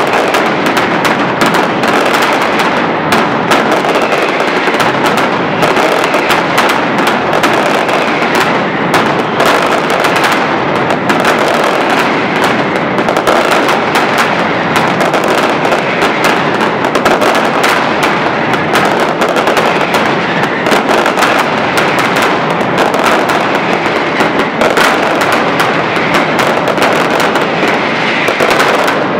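Mascletà firecrackers going off in a dense, unbroken barrage of loud bangs, so close together that they run into one continuous rattle with no pauses.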